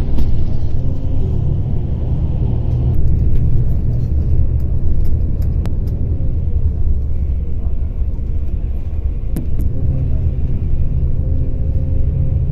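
Road and engine noise heard from inside a moving vehicle: a steady low rumble, with a few faint ticks.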